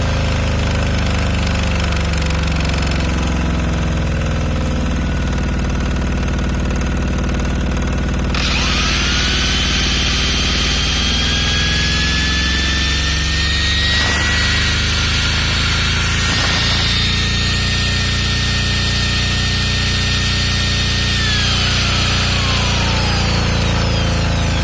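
An 8 kW diesel generator runs at a steady engine speed, its electronic governor holding speed under load. About eight seconds in, an electric load, likely a power tool, switches on with a rising whine over a hiss. The whine falls away again near the end.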